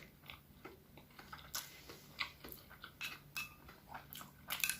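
A person chewing and eating close to the microphone: soft irregular mouth clicks and smacks, with a quick cluster of them near the end.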